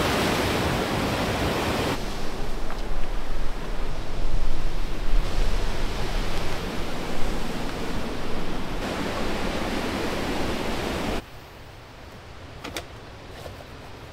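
Heavy surf breaking on a rocky shore, with wind buffeting the microphone, makes a steady loud rush. About eleven seconds in it drops to a much quieter background with a few light clicks.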